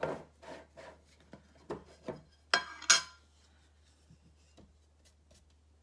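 A paint tin being opened: a few small knocks and taps, then two sharp metallic clinks with a short ring about two and a half seconds in, as the metal lid comes off and is set down.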